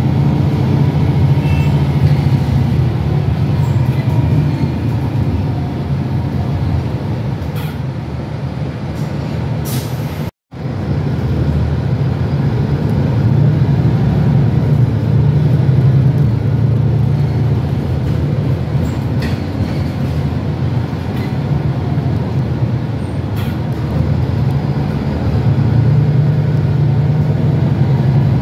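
Cabin sound of a MAN NL323F city bus accelerating under a kickdown, its six-cylinder diesel running loud and hard. The engine note swells and eases with the load, and there is a short hiss of air about ten seconds in, just before a momentary dropout.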